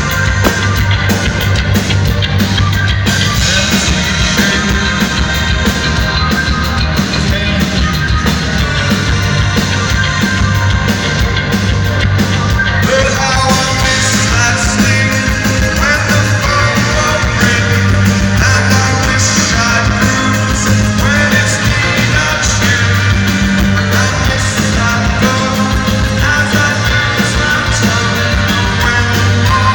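Rock band playing live through a venue PA: drums, bass and guitars going steadily, with a lead vocal coming in about halfway through.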